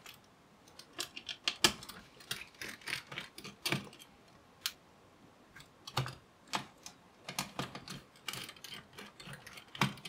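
Irregular small clicks and taps of a precision screwdriver undoing the cooling fan's mounting screws in an open HP Elite x360 1040 G9 laptop: the metal bit catching on the screw heads and the driver knocking on the fan housing.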